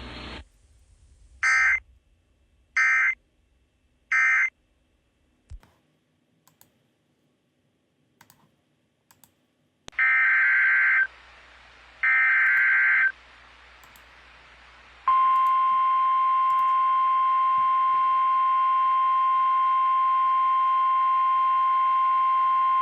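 Emergency Alert System data bursts and attention tone. Three short screeching bursts of the end-of-message code are followed by a few seconds of near quiet. Two longer header bursts then start the next alert, and about two-thirds of the way in the steady single-pitch NOAA Weather Radio 1050 Hz warning tone begins.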